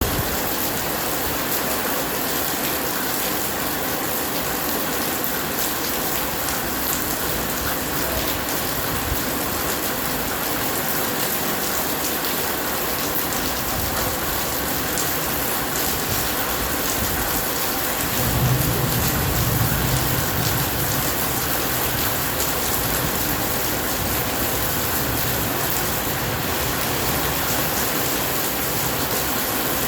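Steady heavy rain falling. About two-thirds of the way through, a low rumble of thunder swells for a few seconds under the rain.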